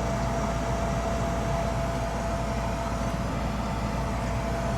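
Old gas furnace running with its burners lit: a steady hum and rush of its motors and air, with a thin steady whine over it.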